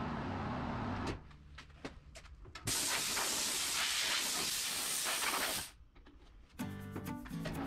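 Compressed air hissing steadily for about three seconds in the middle. Background music cuts out about a second in and comes back near the end.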